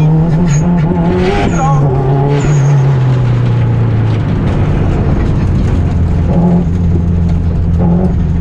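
Rally car engine running under way, its revs easing down over the first few seconds and then climbing again about six seconds in as it pulls, over a steady rumble of road and tyre noise.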